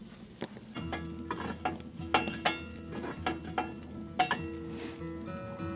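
Rib steaks sizzling on a hot grill grate over wood coals, with irregular sharp pops and crackles. Quiet background music with held notes comes in about a second in.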